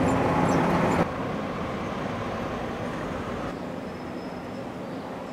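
Steady low engine hum and street noise from a vehicle. It is louder for about the first second, then cuts abruptly to a quieter, even hum.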